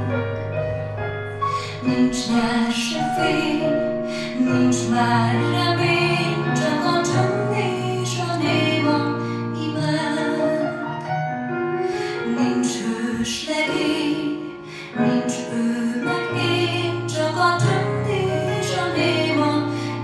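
A slow song with a woman singing over sustained instrumental backing and steady bass notes; it drops away briefly about two-thirds of the way through.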